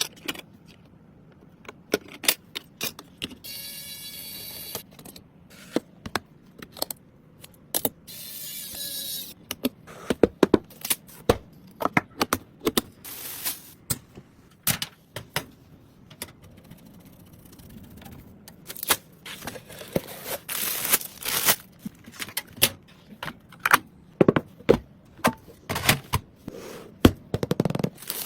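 Desktop computer parts being handled and fitted: irregular clicks, knocks and light clatter of hardware and screws. Two roughly one-second scraping, whirring sounds come about four seconds in and again around eight to nine seconds.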